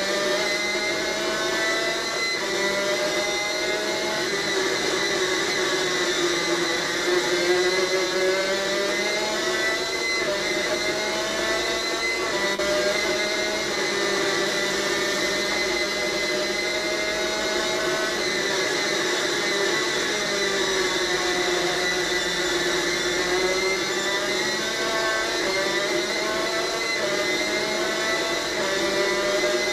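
A superkart's 250cc two-stroke engine at racing revs, heard close up from on board. Its high, buzzing note climbs in pitch over and over and drops back between climbs as the kart accelerates, changes gear and slows for corners.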